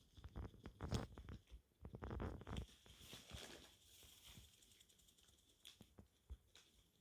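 A guinea pig rustling and shuffling in its bedding: irregular scratchy rustles and clicks for the first two or three seconds, then only faint scattered ticks.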